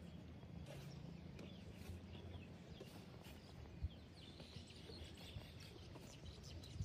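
Faint scuffing and soft knocks of baby elephants kicking loose dirt, with one sharper thud about four seconds in. Under it runs a low steady hum, and a few faint bird chirps come in the second half.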